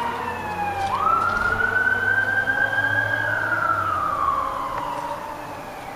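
Emergency vehicle siren wailing. Its pitch falls, climbs quickly about a second in, holds high, then slides slowly down again before starting to rise near the end.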